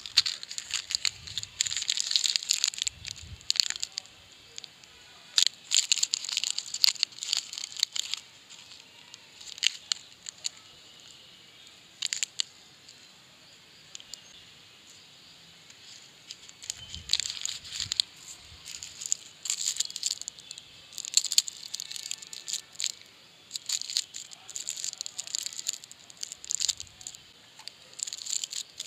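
Plastic and foil candy wrappers crinkling and tearing as sweets are unwrapped by hand, in bursts of sharp crackles and clicks with a quieter stretch about halfway through.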